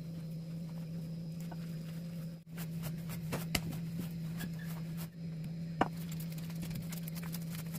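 Hands kneading wet batbout dough in a glazed terracotta bowl: soft squishing with a few sharp slaps and clicks. Under it runs a steady low hum that drops out briefly twice.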